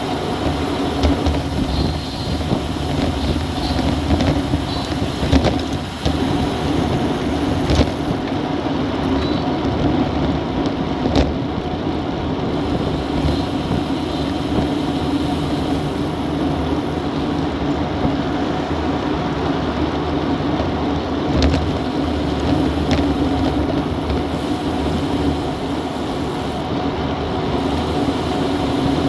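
Steady rush of wind buffeting an action camera's microphone, mixed with road bike tyres humming on asphalt, at about 40 km/h. A few sharp knocks, from bumps in the road or the bike's drivetrain, stand out about 8, 11 and 21 seconds in.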